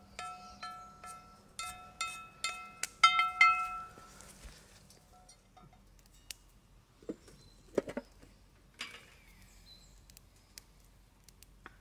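Background music of plucked, ringing notes repeated at the same pitches, stopping about four seconds in. A few short sharp sounds follow over quiet outdoor background, the loudest near eight seconds in.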